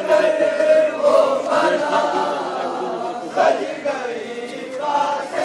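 A group of men's voices chanting together, a Shia mourning lament (noha), with long held notes and rising and falling lines.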